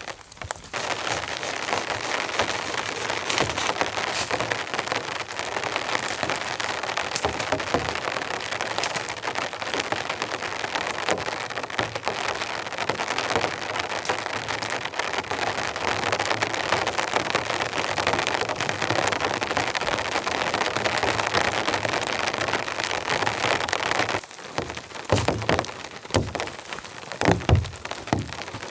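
Heavy rain falling steadily. About 24 seconds in the rain noise drops and a few knocks of dead wood being handled follow.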